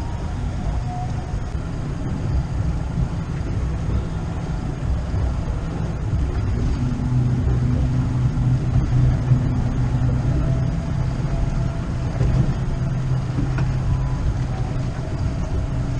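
Wind rumbling on the microphone over open water, with a steady low engine hum joining about six and a half seconds in.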